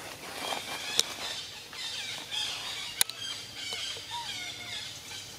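Young long-tailed macaques squealing and squeaking in a series of short, high calls during a rough play fight, with two sharp clicks about a second in and again near the middle.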